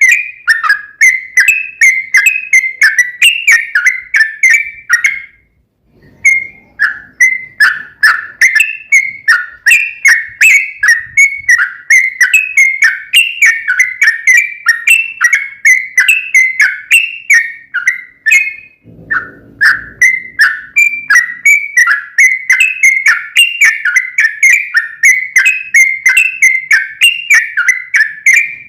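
Yellow-vented bulbul (trucukan) singing a long, rapid run of chattering notes, about two to three a second, breaking off briefly twice.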